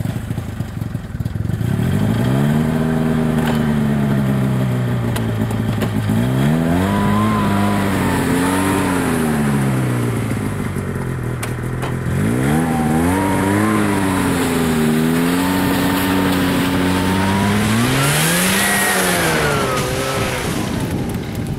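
Snowmobile engine under load, revving up and easing off several times as it drives across a snow-packed stream crossing and up the bank, with the highest revs near the end.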